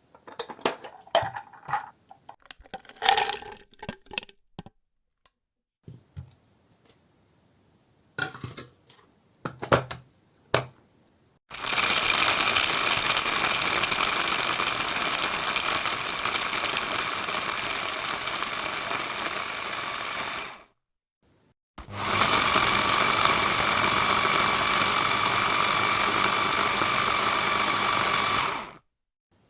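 Scattered clicks, knocks and light clatter, then an electric hand mixer's motor runs steadily with a constant whine for about nine seconds. It stops briefly and runs again for about seven seconds.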